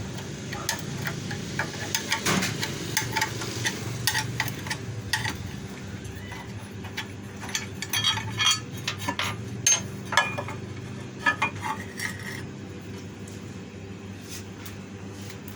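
Irregular metallic clinks and knocks of tools and metal parts being handled while a meat slicer is taken apart, with a low steady hum underneath.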